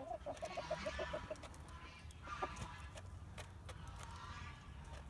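Easter egger hen clucking in a quick run of short notes for the first second and a half, then a few scattered sharp clicks as her beak pecks at pellet feed in a plastic dish.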